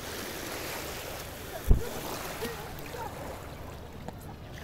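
Shallow sea water lapping gently at the shoreline, a steady wash. About a second and a half in there is one short, loud low thump.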